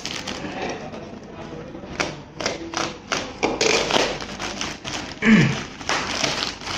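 A plastic-wrapped parcel being pulled and torn open by hand: crinkling and rustling with sharp rips and taps that get busier from about two seconds in.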